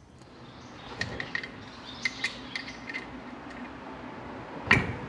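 A screwdriver prying a piston out of a four-piston brake caliper: small metallic clicks and scrapes, then one louder knock near the end.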